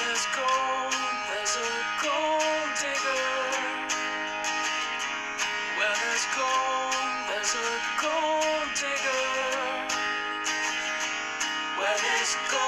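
Background music: an instrumental stretch of a song, with guitar carrying a gliding melody over a steady beat.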